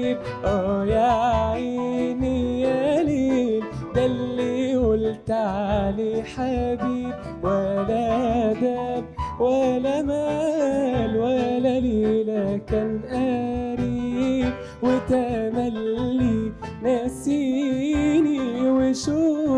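A male voice sings a long, wavering, ornamented Arabic vocal line into a microphone. A live band of plucked strings and percussion accompanies him.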